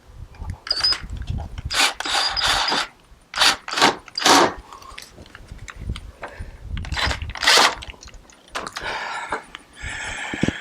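Hand tool driving a screw into a plastic step-bar end cap, giving mechanical rasping and clicking sounds, with several loud noisy bursts between them.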